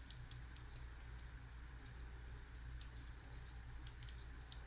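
Faint, irregular small clicks and ticks from handling the tripod's dual rail clamp as a rifle is fitted to it, over a steady low hum.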